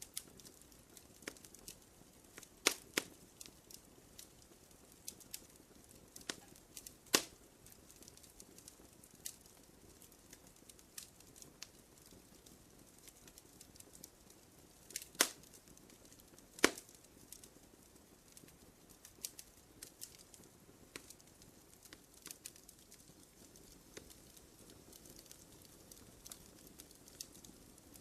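Small campfire crackling: irregular sharp pops and snaps over a faint steady hiss. A few louder pops stand out, about three seconds in, about seven seconds in, and a pair a second and a half apart around fifteen to seventeen seconds.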